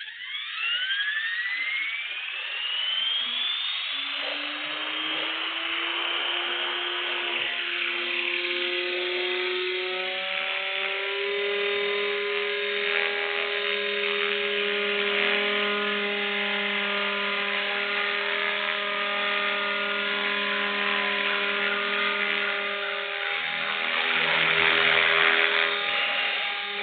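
Radio-controlled helicopter spooling up, the whine of its motor and rotor gears rising steeply in pitch over the first few seconds, then holding a steady whine as it hovers on its freshly rebuilt head and drivetrain. The pitch and level stay even, with a slight swell near the end.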